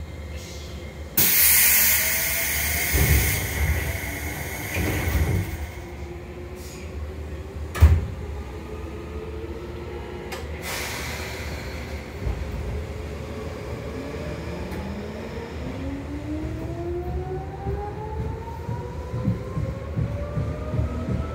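Seibu 2000-series field-chopper-controlled electric train: a loud air hiss and thuds as the pneumatic doors close, with a sharp knock near 8 s. Another short hiss of air follows, then the traction motors start a whine that climbs steadily in pitch as the train pulls away.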